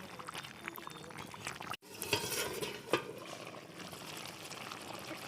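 Spoon stirring a thickening rabbit curry in a pot: scraping and clinking against the pot, with a sharp knock about three seconds in. The sound cuts out for an instant just before two seconds.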